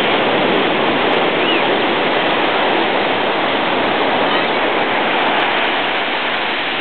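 Ocean surf breaking and washing over a flat sandy beach: a loud, steady rushing hiss.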